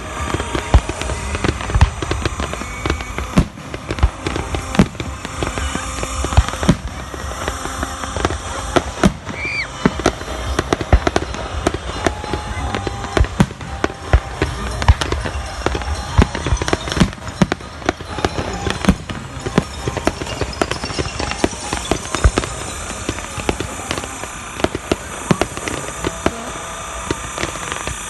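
Fireworks display: a dense, irregular barrage of shell bursts and crackles, several bangs every second with no let-up.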